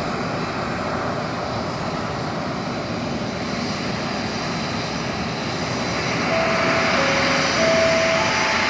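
Boeing 737 airliner's jet engines at taxi power: a steady rush with a high whine, getting louder from about six seconds in as the plane comes nearer.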